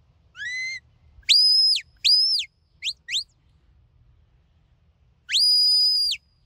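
Sheepdog handler's whistle commands to a working sheepdog: a short lower rising note, two loud high notes each rising then falling, two quick short chirps, then after a pause one long held high note near the end.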